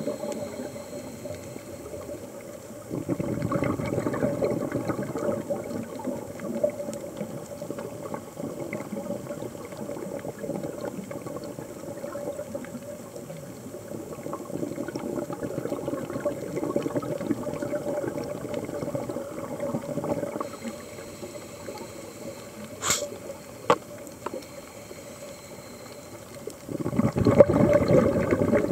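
Scuba diver's regulator breathing heard through an underwater camera: long stretches of rushing, bubbling exhalation noise with quieter gaps between, the loudest near the end, and a couple of sharp clicks a little before it.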